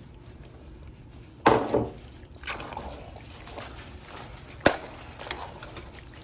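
Liquid sloshing as the water shaken in the emptied Alfredo sauce jar is poured out, with scraping and two sharp knocks, one about a second and a half in and another near five seconds.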